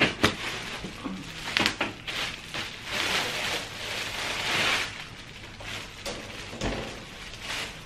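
Clear plastic wrap crinkling and rustling as a metal mesh shoe-rack shelf panel is handled and unwrapped, loudest in the middle, with a few light knocks.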